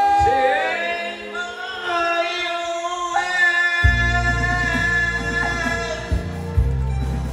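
A man singing a slow, gliding melody through a microphone and PA with a live band's keyboards; about four seconds in, the bass and beat come in strongly under him.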